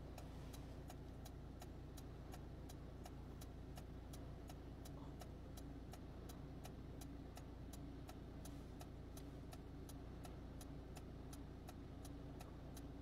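Faint, even ticking about three times a second over a low steady hum.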